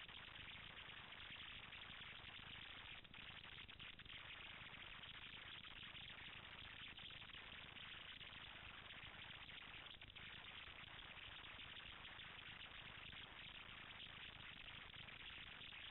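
Near silence: a steady faint hiss.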